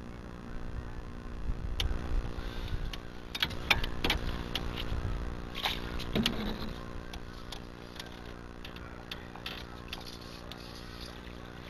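Small boat motor running steadily, with scattered clicks and knocks of fishing tackle being handled aboard, mostly in the middle seconds.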